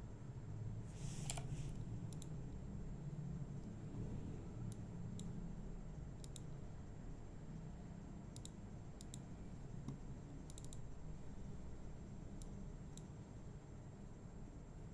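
Computer mouse clicking: about a dozen single clicks at irregular intervals, over a low steady hum, with a brief scratchy noise about a second in.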